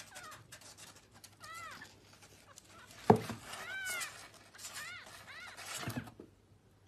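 A very young kitten mewing: about five or six short, high-pitched mews, each rising and then falling in pitch. There is a sharp thump about three seconds in and light cardboard rustling as the kitten scrambles about in the box.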